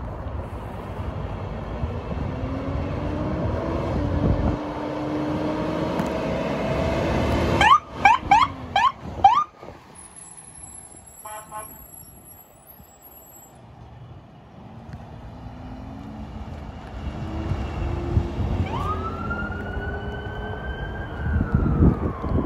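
Phoenix Fire Department rescue ambulance pulling off on a code 3 call: its engine revs up and pulls away. About eight seconds in comes a quick run of rising siren yelps, the loudest sound. Near the end a siren begins a slow wail, rising, holding and then starting to fall.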